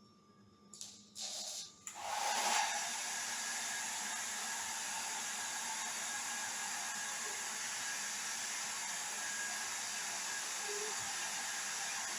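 Hand-held hair dryer starting with two brief bursts, then switched on about two seconds in and blowing steadily.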